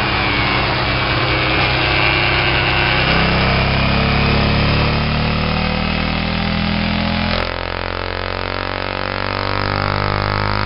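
Car engine running steadily through a Roncar 2way+ valved sport exhaust, giving a loud, low drone. About seven seconds in, the sound changes abruptly to a slightly quieter note.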